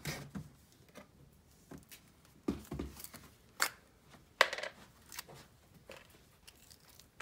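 Small plastic slime tub handled and its screw lid taken off: scattered light clicks and knocks, with a dull thump about two and a half seconds in.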